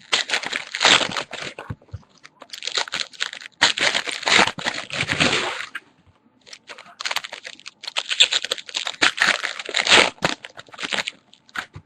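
Baseball card packs being torn open by hand, their wrappers crinkling and tearing in three long stretches with a short pause about halfway through.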